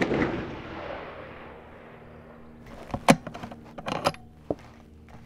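The echo of a 6mm Creedmoor rifle shot fading away over the first two seconds. A few sharp metallic clicks follow about three and four seconds in, typical of the rifle's bolt being worked to eject the fired case.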